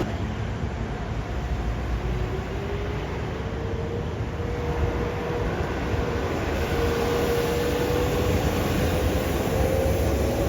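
Heavy road traffic: a large vehicle's engine and tyres rumbling steadily as it passes, with a faint engine tone that slowly rises in pitch.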